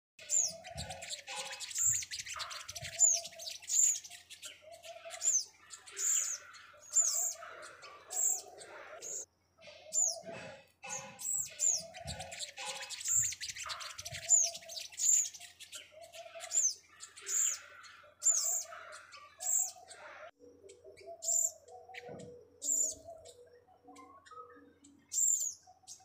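Several small birds chirping and calling: a string of sharp, high, downward-sliding chirps about once or twice a second, over softer, lower warbling calls.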